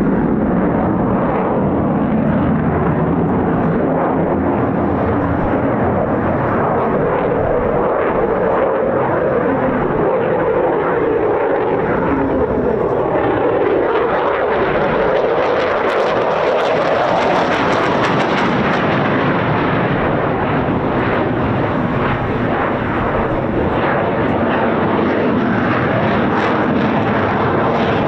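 Jet noise from a Eurofighter Typhoon's twin EJ200 turbofans, loud and continuous, its pitch drifting slowly up and down as the fighter manoeuvres.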